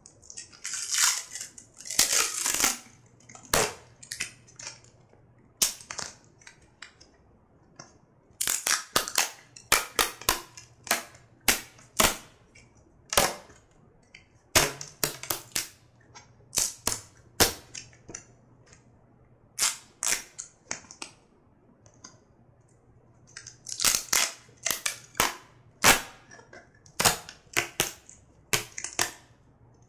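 Duct tape being pulled off the roll and torn: a long run of sharp ripping snaps, some drawn out for about half a second, in clusters with short pauses between.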